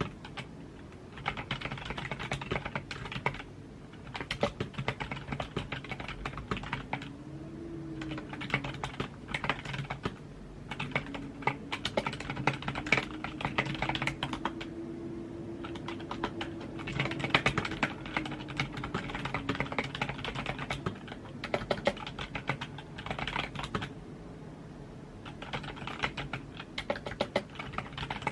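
Typing on a computer keyboard: fast runs of key clicks in bursts of a few seconds, broken by short pauses.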